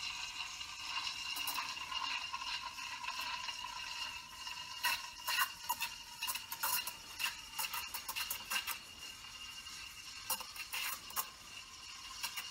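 Rancilio Silvia steam wand steaming milk in a stainless steel pitcher: a steady hiss with a high, even screech. From about five seconds in it is broken by irregular sharp chirps and crackles, the sound of the wand tip drawing air into the milk.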